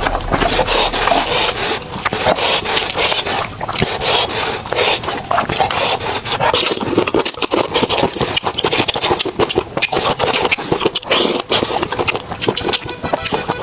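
Eating sounds: rapid, dense crunching and crackling from chewing or biting into crisp food.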